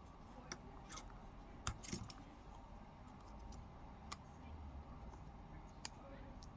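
A few scattered light clicks and taps of small hard objects, such as a phone and repair tools being handled on a work surface, over a faint low hum.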